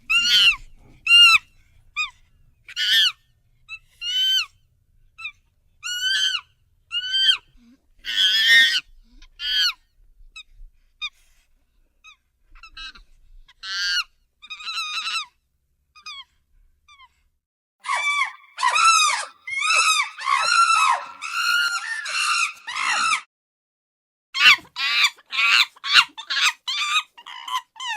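Common chimpanzee giving short, high-pitched calls that rise and fall in pitch. They come singly with gaps at first, then in a fast run about eighteen seconds in, and in another quick cluster near the end.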